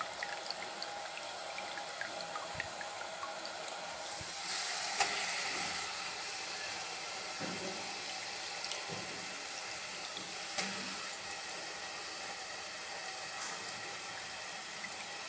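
Tomato-and-vegetable mixture sizzling steadily in a pressure cooker as soaked wheat rava is added by hand; the sizzle grows louder briefly about four to five seconds in.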